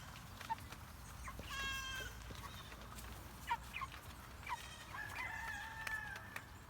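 Chickens calling: scattered short clucks and two drawn-out calls, the second, about five seconds in, the longest.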